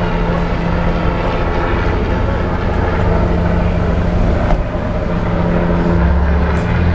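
Steady low engine drone with a constant hum, from vehicles idling and driving past on a city street.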